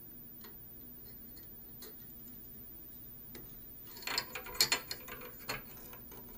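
A few faint ticks, then a quick cluster of light clicks and taps from about four seconds in, as hands handle thin twisted wires and small parts.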